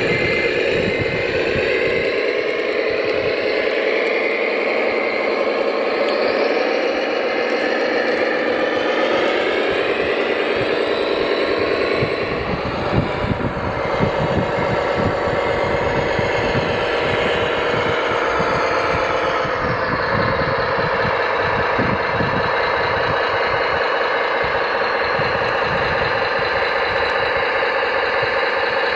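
Radio-controlled construction vehicle running, with a steady engine-like drone and some rattle. The pitch rises about a third of the way in, shifts again near the middle with a brief knock, and changes once more about two-thirds in.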